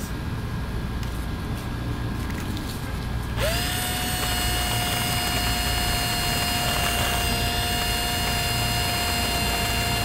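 An electric power drill spins up about three and a half seconds in, then runs at a steady high whine.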